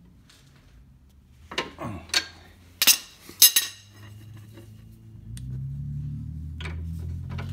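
Steel hand tools clinking: a chrome socket and breaker bar knocked and handled against each other, four sharp metallic clinks with a brief ring in the first half. A low steady hum comes in after about five seconds, with a couple of lighter clicks near the end.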